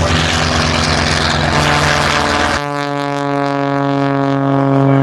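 Propeller aerobatic airplane's engine running loud with heavy propeller noise, then about halfway through the sound switches abruptly to a steady, even-pitched drone.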